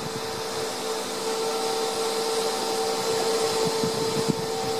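Cooling fan of a Tesla Chargers Solar Tracker 5 EX solar charge controller running steadily, a whirring hum with a steady whine, described as very loud. A few low bumps and a sharp click come near the end.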